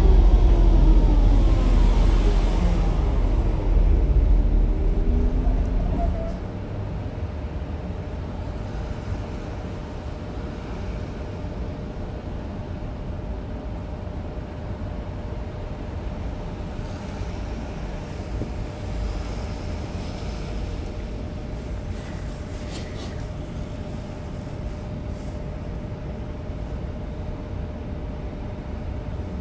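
Frankfurt type R low-floor tram's electric traction drive, its whine sliding down in pitch and then rising again over heavy rumble for the first six seconds. After that it drops to a steadier, quieter running noise with a constant hum.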